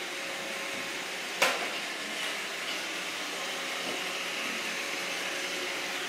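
iRobot Roomba 650 robot vacuum running on a hard floor: a steady whir of its vacuum motor and brushes with a faint steady hum, and a single sharp knock about a second and a half in.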